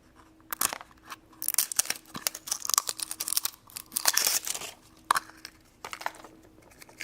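A toy surprise packet being torn open and crinkled by hand, in irregular bursts of crackling with a short pause in the middle.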